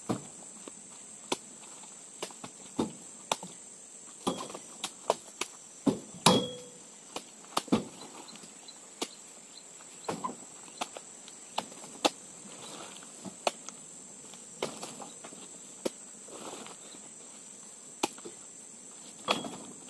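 Oil palm fruit bunches being spiked and thrown into a pickup's bed: irregular thumps and knocks, the loudest about six seconds in with a short metallic ring. A steady high insect buzz runs underneath.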